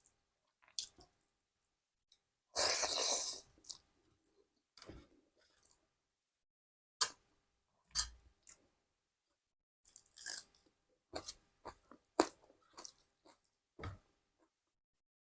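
Close-up eating sounds: wet chewing with scattered small crackles and clicks, and one loud crunch just under a second long about two and a half seconds in.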